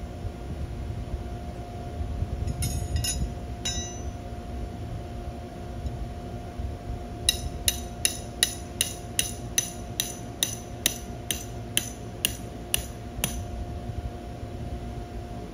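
Hammer striking a metal ground stake to anchor the bounce house: three strikes about 3 s in, then a steady run of about fifteen ringing blows, roughly three a second, stopping near the end. The inflatable's blower runs steadily underneath.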